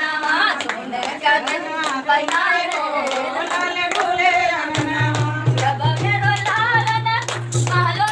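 Women singing a folk song together, kept in time by rhythmic hand clapping. A low steady hum comes in about five seconds in.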